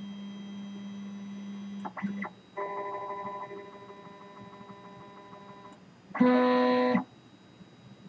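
MakerBot 3D printers' stepper motors moving the axes into position while the Replicator+ calibrates itself. A steady hum cuts off about two seconds in with a few clicks, then a whine of several steady tones runs for about three seconds. About six seconds in comes a louder whine that starts and stops abruptly and lasts under a second.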